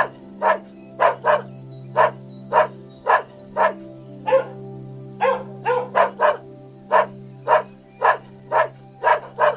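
A dog barking over and over, short sharp barks about two a second, some in quick pairs.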